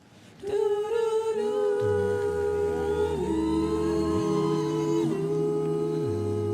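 A vocal group humming sustained chords without words, starting about half a second in, with a low bass part entering about two seconds in and moving to new notes twice.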